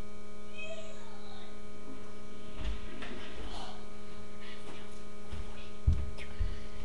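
Steady electrical mains hum made of many fixed tones. Over it come a few dull low thumps, the loudest about six seconds in, from a person opening a door and stepping up close.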